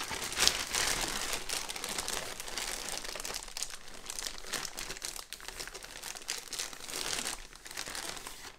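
Clear plastic bag crinkling and rustling continuously as hands dig around in it and work a soft-plastic lure out.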